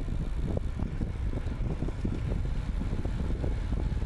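Wind buffeting a bicycle-mounted camera microphone while riding an e-bike, a steady low rumble with irregular thumps and some tyre and road noise.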